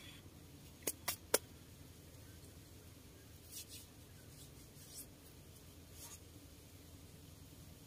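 Three sharp clicks in quick succession about a second in, then a few soft rustles, like small handling noises close to the microphone, over a low steady background noise.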